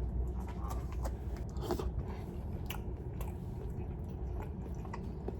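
A person chewing a mouthful of roasted pork over rice and cabbage close to the microphone, with scattered small crunchy clicks.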